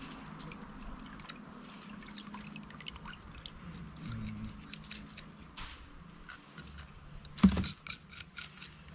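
Fish being scaled with a knife: a run of small, irregular scraping clicks, with one louder knock about seven and a half seconds in.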